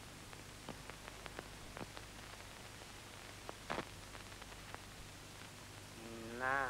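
Steady hiss and low hum of an old film soundtrack, with faint scattered clicks. A man's voice makes a short rising sound near the end.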